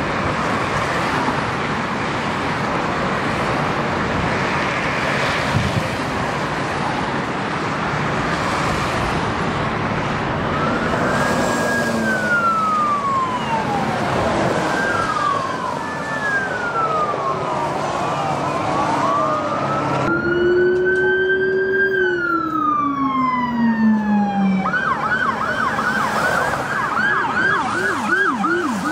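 Steady freeway traffic noise, then police car sirens wailing in long rising and falling sweeps, several overlapping, from about ten seconds in. Near the end a siren switches to a fast yelp, about three or four cycles a second.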